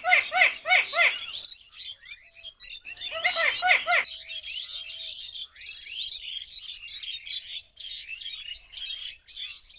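Alexandrine parakeet calling: a quick series of repeated chirps, about four a second, near the start and again about three seconds in, with softer, higher twittering chirps between and after.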